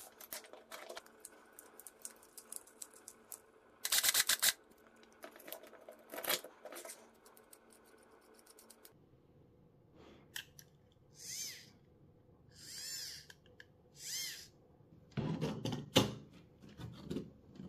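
Clicks and ticks of small plastic and metal parts being handled and fitted together by hand, with a quick run of rattling ticks about four seconds in. In the second half come three short, wavering high squeaks, then more clicks near the end.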